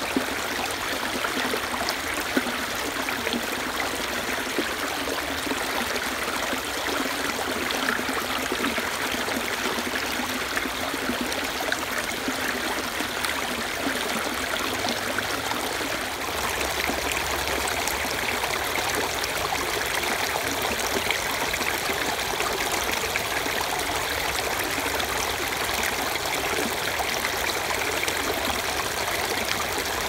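Shallow creek water running and splashing over rocks and a small ledge, a steady babble.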